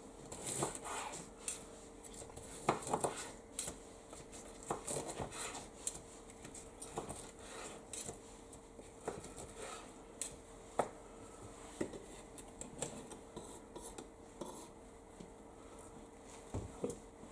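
Utensils clinking and scraping against plates as food is served and arranged, in scattered light taps and scrapes, over a faint steady hum.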